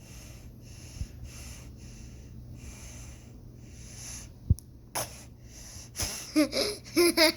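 A child's fake snore: soft breathy puffs about twice a second, then a few sharp, louder snorts and squeaky, wheezing vocal sounds near the end.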